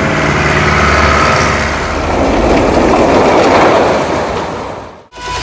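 Engine of a loaded three-wheeled farm truck running steadily for about two seconds. It then gives way to a louder rushing noise with no clear pitch, which fades out just before the end.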